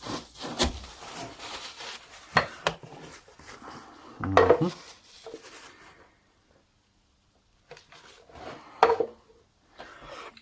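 Workshop handling noises: a scattering of clinks and knocks as hard objects are picked up and set down, the loudest a cluster about four seconds in and another near the end, with a brief dead-quiet gap just past the middle.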